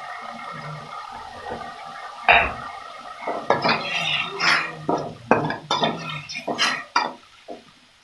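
Metal spatula scraping and knocking against an aluminium wok as cabbage and chillies are stir-fried in a little added water, over a steady sizzle. The scrapes start about two seconds in, come about a dozen times, and thin out near the end.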